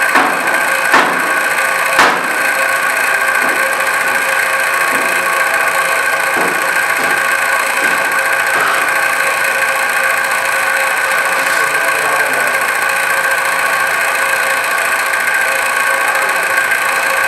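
A cleaver chopping on a plastic cutting board, with a few sharp knocks in the first two seconds and fainter ones after, over a steady machine hum with a whine in it.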